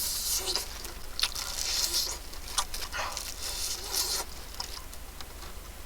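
Close-up chewing and crunching of crispy fried chicken, in irregular crackly bites, strongest at the start and about two and four seconds in.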